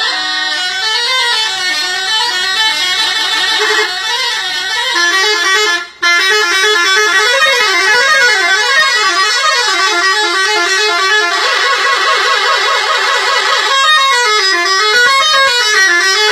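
Indonesian bus telolet horn, a multi-trumpet musical horn, playing a fast warbling tune of notes stepping up and down over and over. The horn cuts out briefly about six seconds in, holds a steady chord for a few seconds near the end, then goes back to warbling.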